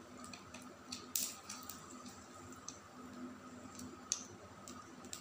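Light, sharp clicks and scrapes of a small metal spatula against a tiny toy frying pan, irregular, the loudest about a second in and again about four seconds in, over a faint steady hum.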